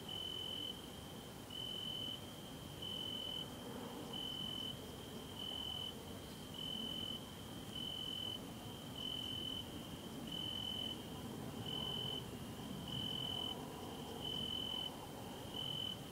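A cricket calling: a steady, high, thin trill in short regular pulses, a little under one a second, over faint background hum.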